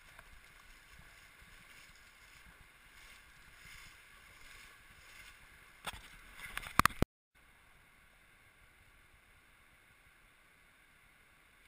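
River water flowing, heard muffled through a GoPro's waterproof housing as a steady hiss. A few sharp knocks come about six to seven seconds in, then the sound drops abruptly to a fainter steady hiss.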